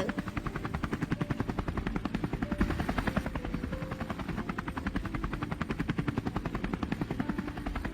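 Helicopter rotor blades turning at speed with a rapid, even chopping beat over a steady low rumble, heard close up as the helicopter readies for takeoff.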